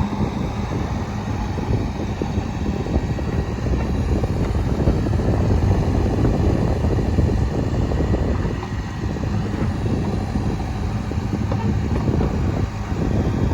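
Case 580 Super N backhoe loader's diesel engine running steadily under load as the backhoe works, its level swelling slightly and dipping briefly twice.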